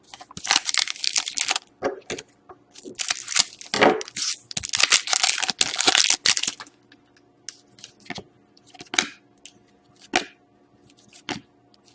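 A foil trading-card pack being torn open and crinkled in bursts of rustling, followed by scattered light clicks and rustles of the cards being handled.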